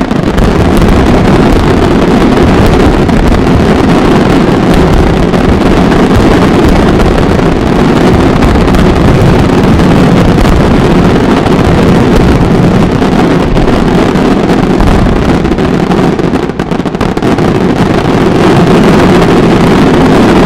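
Fireworks finale: aerial shell bursts fired so densely that they merge into one continuous, very loud noise with no gaps between the bangs, overloading the microphone.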